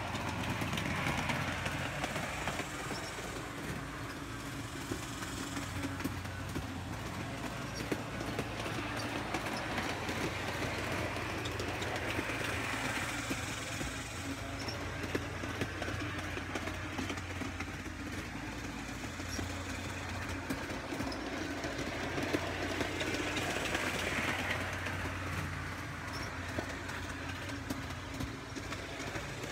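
Garden-railway model locomotives running on outdoor track: a steady electric motor hum with wheels rattling and clicking over the rails. The sound swells and fades three times.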